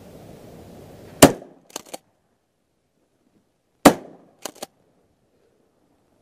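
Remington 870 12-gauge pump-action shotgun firing twice, about two and a half seconds apart. Each shot is followed within about half a second by two quick clacks as the slide is racked back and forward to chamber the next shell.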